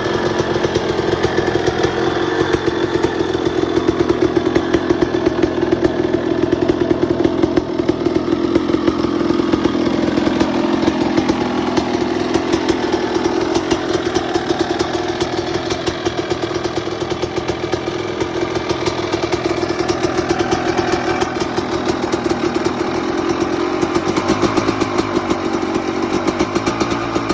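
Two-stroke single-cylinder engine of a rebuilt 2005 Suzuki RM250 dirt bike, running steadily with a rapid, even exhaust beat.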